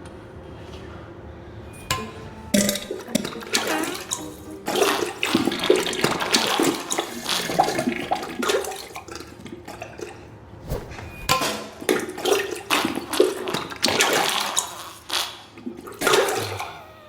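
Diarrhea sound effect: a run of irregular wet spluttering and splashing bursts, as of loose stool and gas hitting toilet water, starting about two seconds in.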